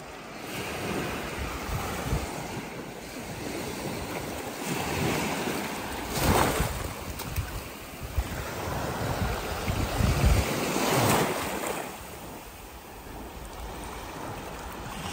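Ocean surf breaking and washing up the sand, swelling twice, with wind buffeting the microphone.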